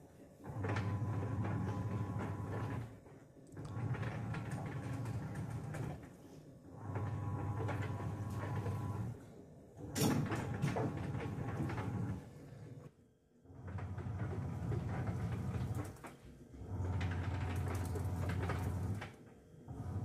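Sharp ES-F950P-GY top-loading washing machine agitating a wash load: the pulsator motor runs in bursts of about two and a half seconds with short pauses between, six times over, each burst carrying a rubbing, scraping noise, with a sharp click about ten seconds in. The rubbing comes from a coin caught beneath the pulsator.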